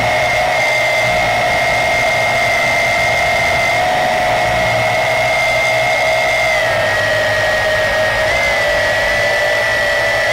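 Yizhan Tarantula X6 quadcopter's motors and propellers whining steadily in flight, heard close up from the camera it carries; the pitch dips slightly about two-thirds of the way in.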